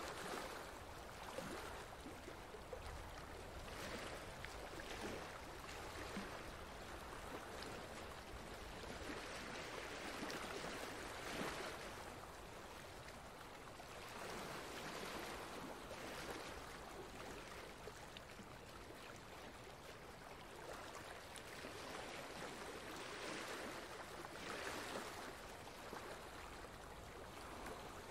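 Running water of a stream, a faint steady rush that swells and eases now and then.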